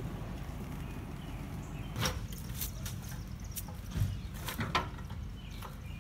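Several sharp knocks and clanks as a metal snow plow frame is handled and shifted in a truck bed, the loudest about two seconds in and around four to five seconds in, over a steady low rumble.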